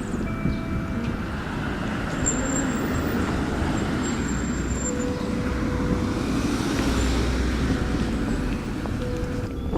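Steady road traffic noise, with a low rumble that swells from about five to eight seconds in as a vehicle passes.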